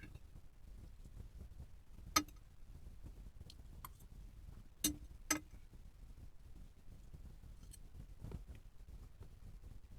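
Cutlery clinking against a dish while eating pasta: a sharp clink about two seconds in, two more close together about halfway through, and a few faint taps, over a low steady room hum.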